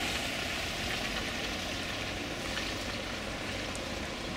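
Steady street ambience on a wet day: an even hiss with a low rumble, from light rain and traffic on a wet road.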